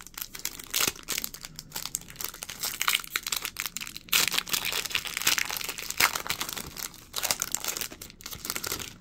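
Foil-lined trading-card pack wrapper being torn open and crinkled by hand: a dense run of crackles, with louder rips about one, four and six seconds in.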